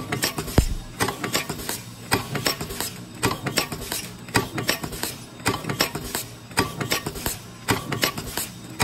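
Aluminium capsule forming line running: a pneumatic press and its foil feeder clatter steadily, with a heavier stroke about once a second and rattling clicks between.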